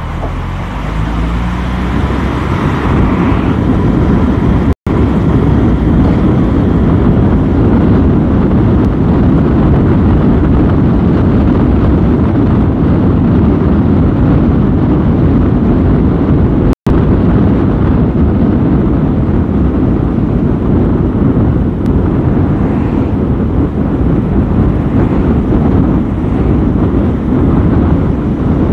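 Loud, steady deep rumble of a car on the move: engine, tyre and wind noise together. It cuts out for an instant twice.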